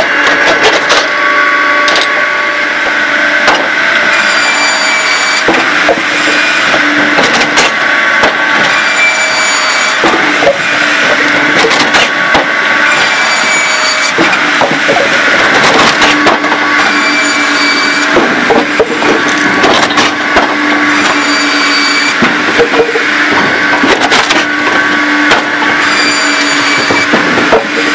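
Posch SpaltFix S-360 firewood processor running. A steady machine drone is cut through by a high whine from the WIDIA circular saw blade about every four to five seconds as it saws each log to length, with scattered knocks and cracks from the log being split and pieces falling.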